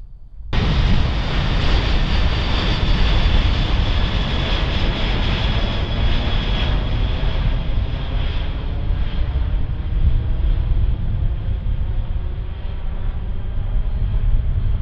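Military jet transport aircraft passing overhead: loud, steady jet engine noise with a high whine, cutting in abruptly about half a second in. The sound slowly grows duller as the plane draws away.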